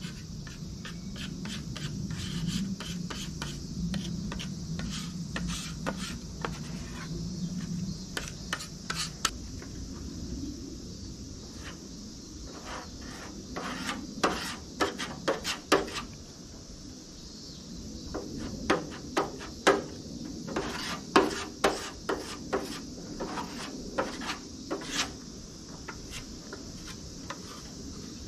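Body-filler spreader scraping putty off a mixing board and across a car body panel to lay on a thin skim coat: a run of short scrapes and taps, densest about halfway through and again in the second half.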